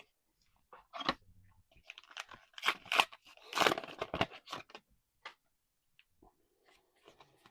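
A trading card booster pack wrapper being torn open and crinkled, in a few rustling bursts over about four seconds, loudest in the middle.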